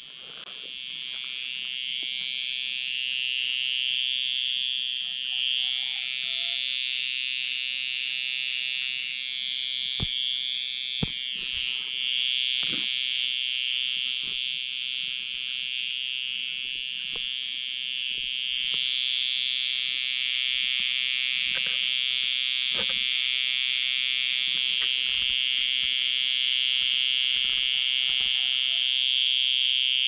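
A cicada singing at close range: one loud, continuous shrill buzz that grows louder over the first few seconds and then holds steady. A few soft knocks sound in the middle.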